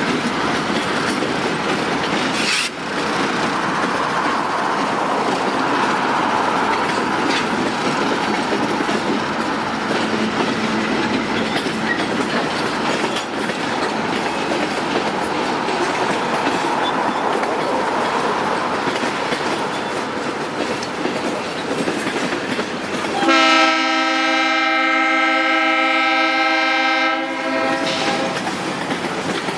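Freight cars rolling past with steady clickety-clack wheel noise and a brief knock a few seconds in. About 23 seconds in, a Leslie RS5T five-chime diesel locomotive horn sounds one steady chord for about four seconds, the loudest sound here.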